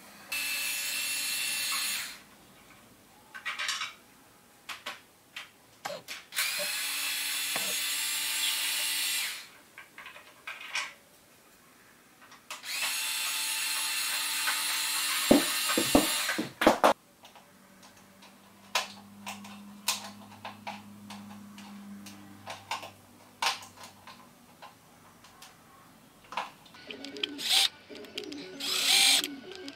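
Cordless drill-driver running in three steady runs of a few seconds each, driving screws into a ceiling lamp's mounting plate, with clicks and knocks between the runs. Near the end come several short, sharp bursts of the tool.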